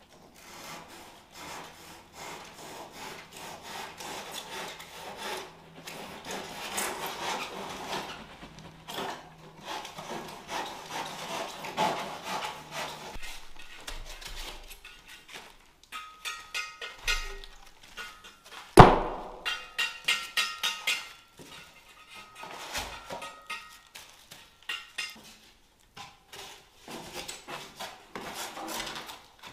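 Foam insulation board being sawn by hand: fast, continuous rasping strokes. After about 13 seconds the sawing gives way to scattered squeaky rubs and knocks as the boards are handled and pressed into place, with one sharp knock, the loudest sound, about two-thirds of the way through.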